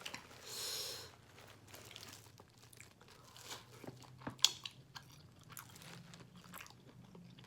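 Close-up mouth sounds of someone eating seafood-boil shrimp: quiet chewing with scattered small wet clicks and crunches. A short airy hiss comes about half a second in.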